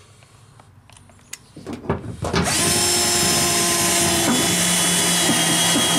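Cordless drill driving a self-tapping screw through a steel bracket into a pickup's bed wall. A few faint clicks come first; about two and a half seconds in the drill starts and then runs with a steady motor whine.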